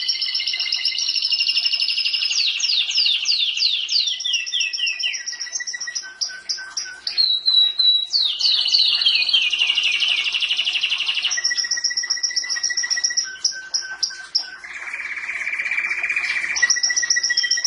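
Domestic canary singing a long unbroken song: fast rolling trills, runs of quick downward-sweeping notes, and held whistled tones, one after another with hardly a pause.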